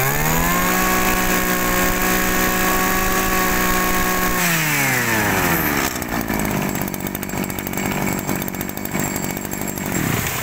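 Zenoah Komatsu G2KC two-stroke brush cutter engine revved to high speed and held for about four seconds, then dropping back to a smooth idle.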